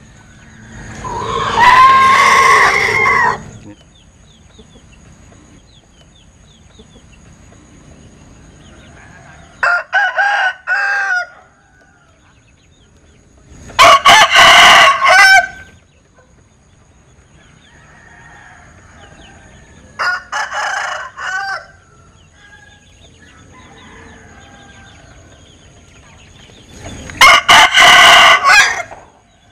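Rooster crowing an unusual, strange-sounding crow five times. The longer crows last about two seconds, and the shorter ones come in several broken pieces.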